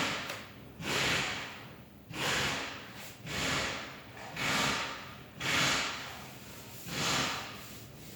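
Body filler being worked with a plastic spreader: seven rhythmic scraping swishes, about one a second, each starting sharply and fading out.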